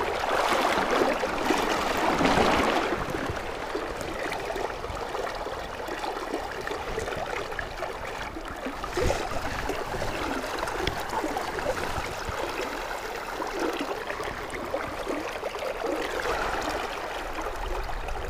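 Shallow river current rushing and rippling close by, loudest in the first few seconds, then a steadier, softer flow.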